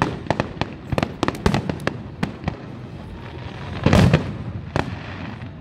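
Aerial fireworks display: a quick run of sharp bangs and crackles in the first couple of seconds, then a louder, deeper boom about four seconds in, followed by a few more cracks.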